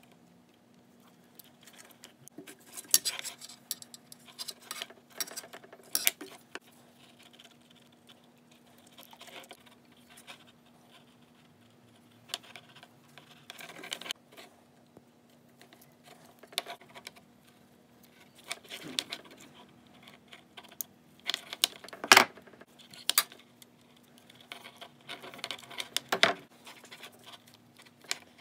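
Irregular clicks, clinks and scrapes of blue-handled crimping pliers and small metal parts being handled as blue insulated butt connectors are crimped onto lamp wires, the sharpest click a little past three-quarters of the way through. A faint steady hum runs underneath.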